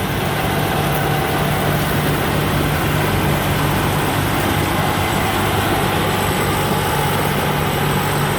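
Combine harvester's Hino J08C diesel engine running steadily at working speed, a constant low drone with the harvesting machinery's noise over it.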